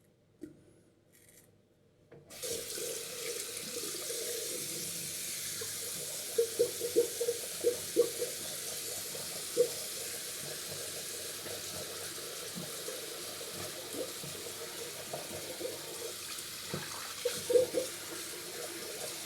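Water tap turned on about two seconds in, running steadily into a sink. A quick run of sharp knocks comes about six seconds in, one more follows shortly after, and a few more come near the end.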